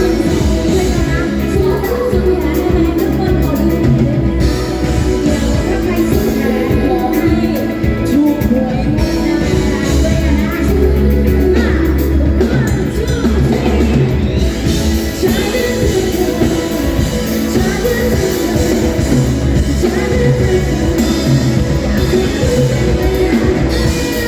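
Live pop-rock band music with a woman singing, recorded loud in a large hall.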